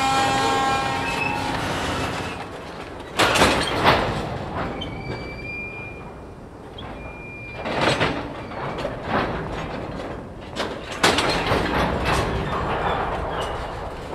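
Slow-moving train of tank cars, couplers banging as the slack runs in and out: a handful of sharp metallic clanks spaced several seconds apart over a steady rolling rumble, with a thin wheel squeal in the middle.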